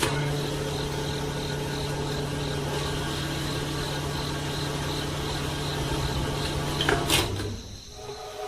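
A small motor running steadily with a constant hum for about seven seconds, then stopping.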